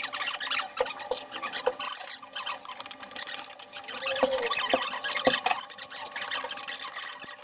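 Metal spoon scraping and clinking against a ceramic bowl, scooping up the last of the rice in a series of small ticks and scrapes.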